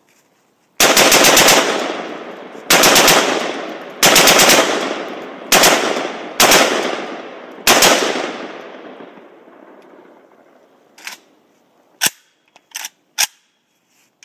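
Krinkov-style short-barrelled AK rifle bump-fired in six rapid bursts of shots over about seven seconds, each burst trailing off in echo. A few short sharp clicks follow near the end.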